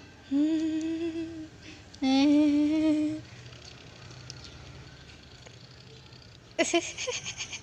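A dog gives two long, steady moaning howls, each about a second, while being massaged. Near the end a person breaks into laughter.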